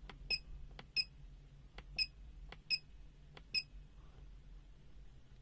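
Five short electronic beeps spaced about a second apart, each a moment after a faint click, as buttons are pressed on a device with a key beeper.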